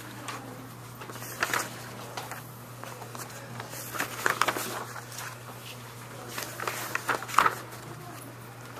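Room tone of a classroom: a steady low electrical hum under scattered brief rustles, knocks and faint voices.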